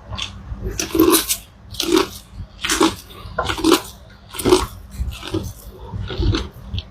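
Close-up mouth noises of someone eating sweet corn, biting and chewing in a steady rhythm of about one chomp a second.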